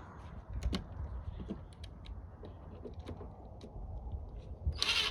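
Scattered light clicks and taps of hand work with tools and small parts, with a louder rustling burst near the end.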